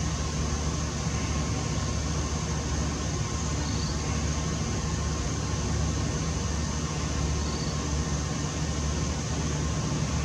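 Steady low rumble with an even hiss, unchanging throughout, with no distinct events.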